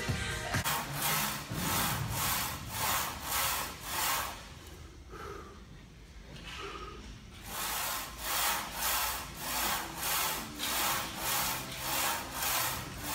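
Hard, rapid panting from heavy exertion on a leg press, about two noisy breaths a second, easing off for a few seconds in the middle before picking up again.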